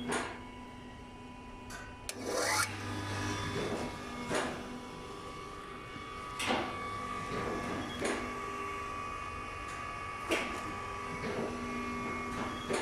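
Uchida D-7 tabletop electric paper drill running with a steady motor hum, and a short rasping stroke about every two seconds as the hollow drill bit is brought down.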